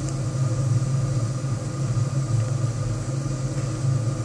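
Waste-oil furnace burner and its blower fan running steadily: an even low hum with a hiss of air and flame over it.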